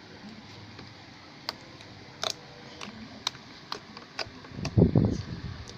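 Slime being squeezed and handled, giving a string of small sharp popping clicks at uneven intervals, then a louder, deeper squelching handling noise near the end.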